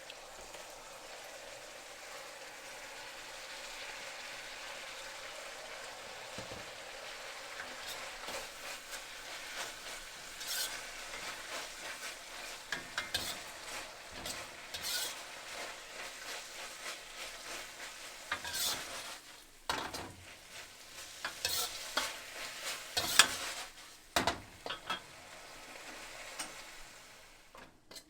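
Food sizzling as it fries in a pan, with a spatula scraping and knocking against the pan as it is stirred. The stirring strokes become frequent after the first several seconds, with one sharp knock near the end, and the sizzle cuts off right at the end.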